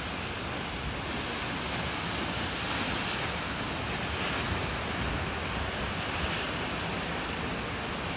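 Steady rushing noise of waterfall and wind, with gusts of wind rumbling on the microphone.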